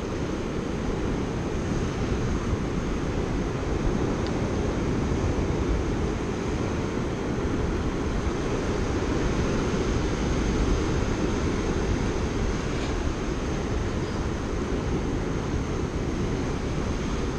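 Steady wind rumbling on the microphone over the wash of rough ocean surf breaking against the rocks.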